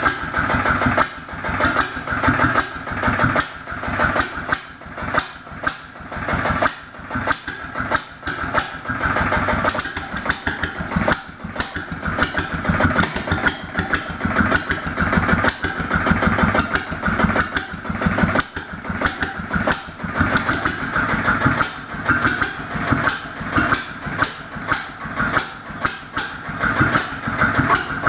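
1922–23 H.V. McKay Sunshine 5 hp two-stroke stationary engine running steadily, a fast, even train of exhaust beats.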